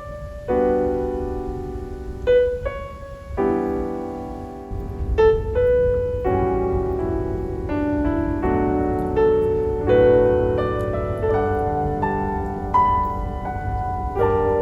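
Background piano music: a slow run of struck chords and notes, each dying away.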